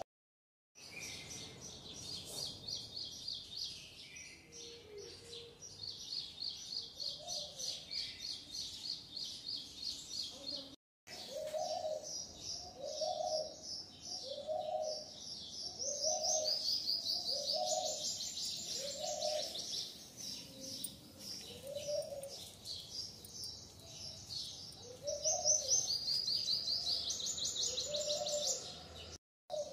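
Birds chirping in rapid high trills, with a lower call repeating about once a second through the middle; the sound cuts out briefly a couple of times.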